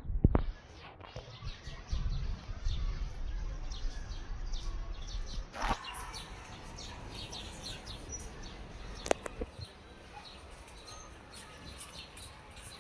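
Many short, high chirping calls from small animals, repeating throughout, over a low rumble in the first half and a few sharp clicks.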